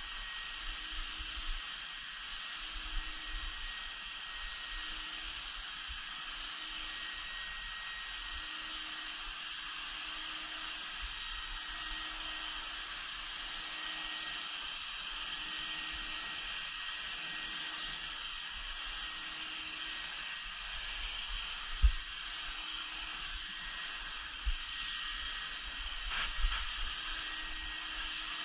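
HVLP turbine paint sprayer blowing air through its spray gun and laying down a mist of Plasti Dip, a steady hiss. A single sharp knock sounds about three-quarters of the way through.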